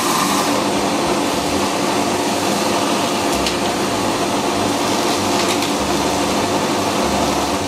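Canister vacuum cleaner running steadily while its hose nozzle sucks up wood shavings through a homemade cyclone dust collector, with a couple of faint ticks as chips are drawn in.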